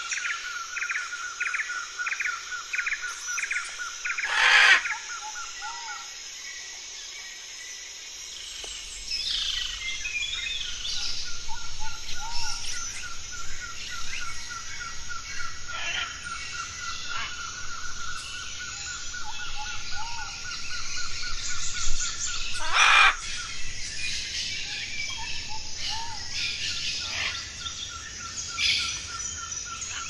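Rainforest ambience of many birds calling: a rapid run of repeated high notes pulses on and off over assorted chirps and whistles. Two loud short calls stand out, about four seconds in and again about 23 seconds in.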